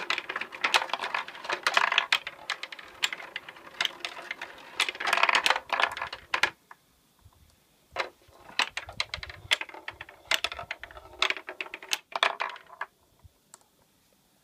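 Steel marbles rolling and clicking through a wooden marble machine's tracks, a dense clatter of clicks that thins out after about six seconds into scattered clicks and dies away near the end.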